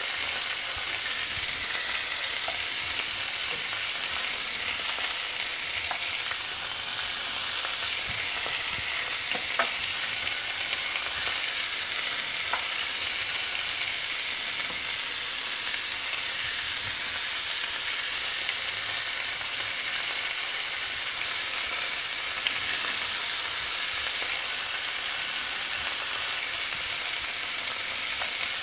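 Pork ribs and sliced onions sizzling steadily on a hot flat griddle plate, with a few short sharp clicks.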